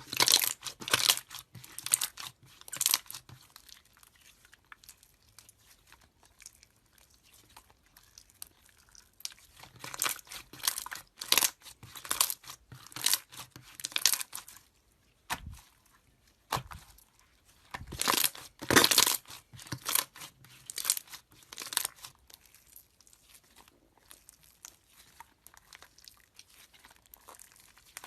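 Slime being squeezed and pressed by hand, giving clusters of short crackles and pops separated by brief quiet pauses.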